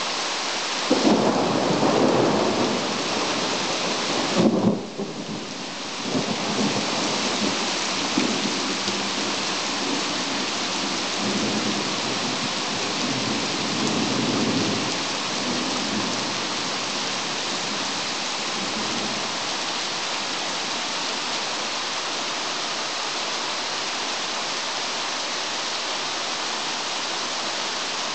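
Heavy rain pouring steadily in a thunderstorm. A loud clap of thunder comes about a second in, with a second crack a few seconds later, and the thunder rolls on and fades away by about fifteen seconds in.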